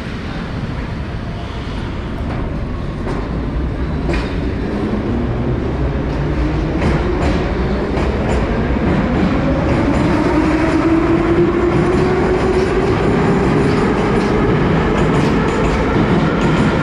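Ezh3 metro train pulling out of the station and accelerating past: the traction motors give a whine that rises in pitch, over a rumble and wheel clicks, growing louder as the cars go by.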